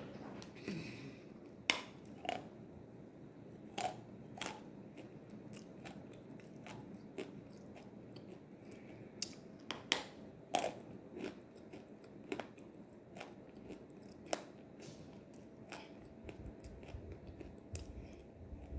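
A person biting and chewing crunchy nzu (calabash chalk, a dried edible clay) close to the microphone: sharp, irregular crunches, loudest a little under two seconds in and again around ten seconds in.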